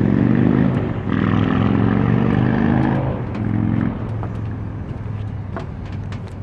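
A motor engine running with a steady hum, loudest for the first four seconds with two brief dips, then easing off; a few faint ticks come in the second half.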